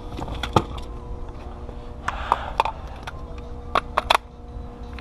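Cordless power tool's battery pack being swapped: a handful of sharp plastic clicks and clacks as the pack is pulled out and a larger one snapped in, with a short rustle just after two seconds and a quick run of clicks near the end.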